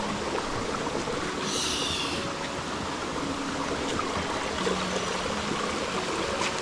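Shallow forest stream rushing and splashing over rocks in small cascades, a steady even rush. A brief high chirp sounds over it about a second and a half in.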